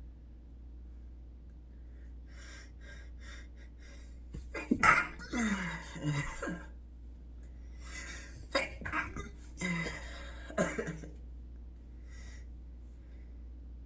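A man sneezing, the fits brought on by tickling his nose with a twist-tie. Quick sniffing breaths come first, then a loud sneeze about five seconds in with a voiced tail that falls in pitch, and more sneezes a few seconds later.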